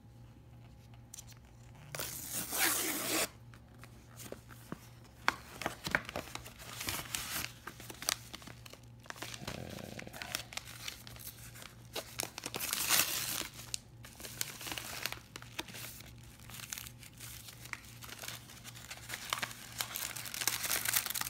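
Paper envelopes being torn open by hand: a FedEx Express envelope and a yellow envelope inside it ripped in several short spells, with paper crinkling and rustling between them.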